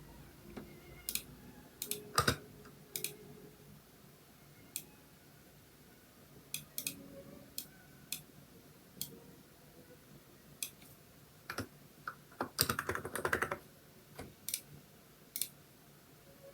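Typing on a Hansung electro-capacitive keyboard with XDA keycaps: scattered single keystrokes with pauses between them, one louder stroke about two seconds in, and a quick run of keystrokes about two-thirds of the way through.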